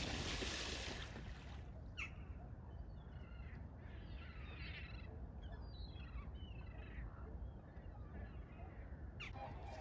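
Outdoor dawn chorus of birds at a lake: a run of rough, repeated calls in the middle, with a few sharp chirps, over a steady low rumble. A brief hiss comes right at the start.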